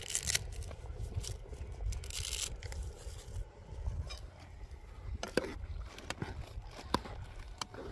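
Scraping and rustling, with a few sharp clicks in the second half, over a steady low rumble.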